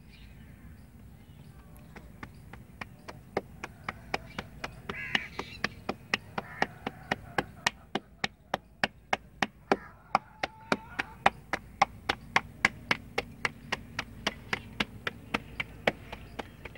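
Stuffed cauliflower paratha dough being patted and slapped flat between the hands, a steady run of sharp slaps about three or four a second that starts about two seconds in and stops near the end.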